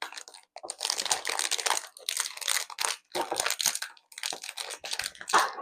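Plastic snack packaging crinkling and rustling as it is handled, in several bursts with short pauses.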